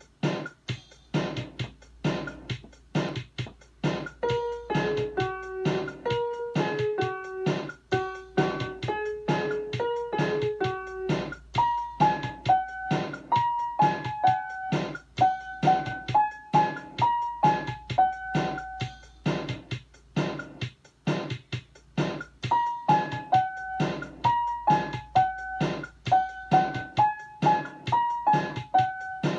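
Child playing a simple melody one note at a time on an electronic keyboard, over a steady beat. The melody comes in about four seconds in and breaks off briefly about two-thirds of the way through.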